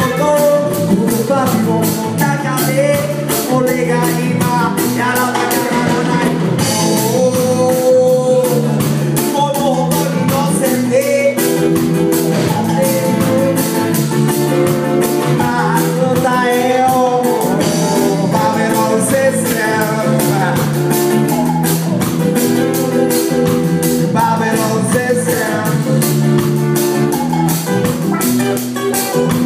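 Live band music: acoustic guitar, electric guitar, congas and drum kit keeping a steady beat, with a man singing.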